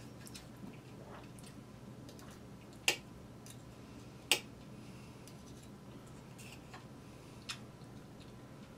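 Fork and knife clinking against a plate while cutting food: a few sharp clicks, the two loudest about three and four and a half seconds in, over a low steady hum.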